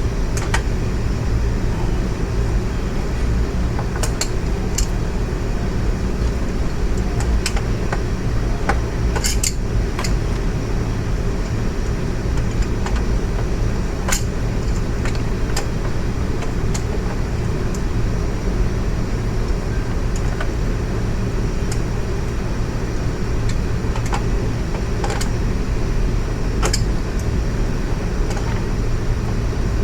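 A steady low mechanical hum, like a fan or machine running, with scattered light clicks and taps of tools and parts being handled during the motorcycle teardown.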